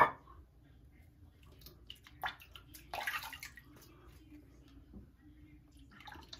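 Brief splash of water in a bathroom sink about three seconds in, among small hard clicks and knocks of shaving gear being handled. A sharp knock at the very start is the loudest sound.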